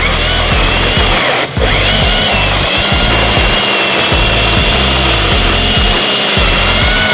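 Battery-powered chainsaw cutting into a birch trunk, its motor whine rising and falling with the load, with a short break about one and a half seconds in. Background music plays under it.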